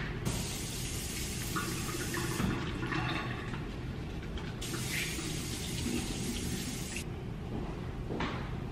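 Automatic sensor faucet running into a restroom sink as hands are washed under it, the water shutting off about seven seconds in.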